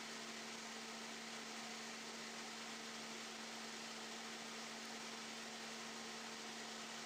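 Steady hiss with a constant low hum underneath, unchanging throughout; no distinct clicks or handling knocks stand out.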